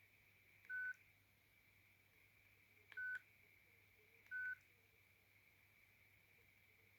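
JWD S300 mobile phone's keypad beeping three times as keys are pressed while navigating its menus: short, identical single-pitch beeps, one near the start, one about three seconds in with a faint click, and one about a second later.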